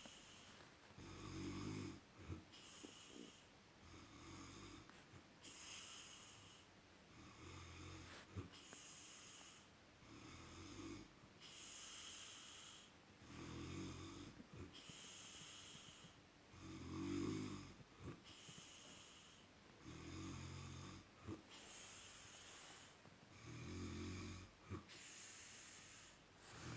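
A man snoring: a low snore alternating with a hissing breath, repeating evenly about once every three seconds.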